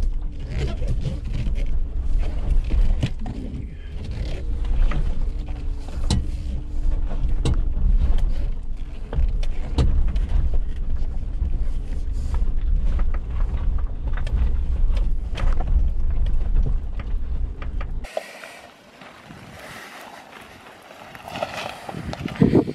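Suzuki Jimny driving off-road: a steady low rumble with a faint engine note and frequent short knocks and rattles from the vehicle working over rough ground. About eighteen seconds in the rumble stops abruptly, giving way to a quieter hiss with a few low bumps.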